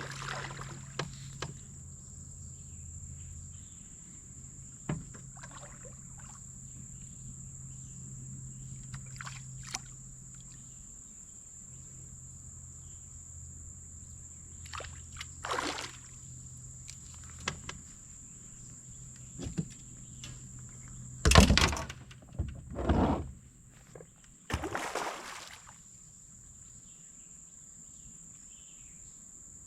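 Scattered splashes, knocks and handling noises around a small fishing boat, the loudest a cluster about two-thirds of the way in. Under them runs a low steady hum that stops about eleven seconds in, and a thin steady high whine throughout.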